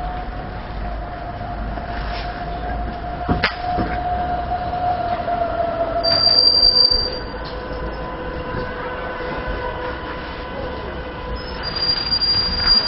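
A Matterhorn Gotthard Bahn narrow-gauge train moving through the station, with a steady whine that drops in pitch about six seconds in. High wheel squeals come around six seconds and again near the end, and there is a sharp click a few seconds in.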